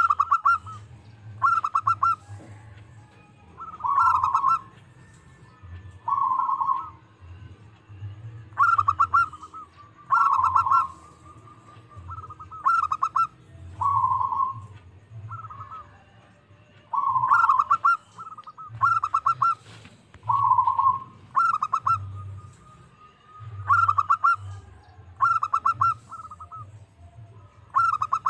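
Zebra dove (perkutut) cooing: short phrases of quick, stuttering rolled coo notes, repeated every one to two seconds.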